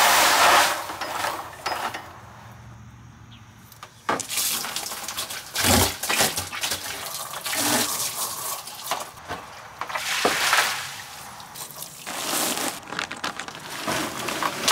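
Water softener brine tank being tipped and emptied: dirty water sloshing and pouring out in uneven gushes, with a few knocks from the plastic tank.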